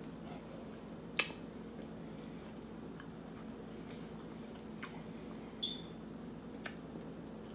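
A person quietly chewing a pork chop held in the hands, with a few sharp mouth clicks and lip smacks, the loudest about a second in. A steady low hum lies under it.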